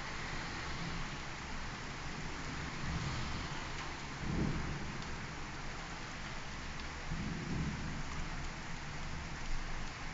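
Steady rain hissing during a soft thunderstorm, with low rolls of thunder: one about four seconds in and another around seven to eight seconds.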